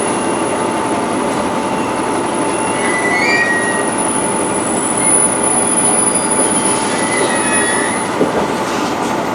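Train running along the track with steady wheel-and-rail noise, and brief wheel squeals about three seconds in and again near the end.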